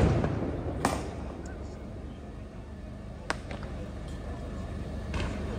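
Firework mortars going off: a loud bang fades out at the start, another bang comes about a second in, and a sharp crack a little after three seconds, over a steady low rumble.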